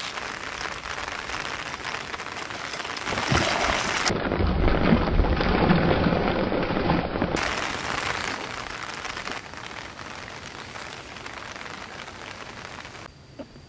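Splashing and churning water as a hooked black carp thrashes at the surface, heaviest and loudest for a few seconds in the middle, then fading away.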